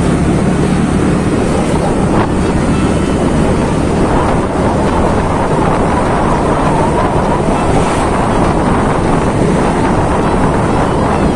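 Wind rushing over the microphone of a moving motorbike, with the engine running steadily underneath at a constant cruising speed.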